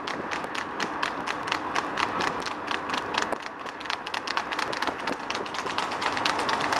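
Shod hooves of trotting harness horses clattering fast and evenly on tarmac, over a steady rumble of road traffic.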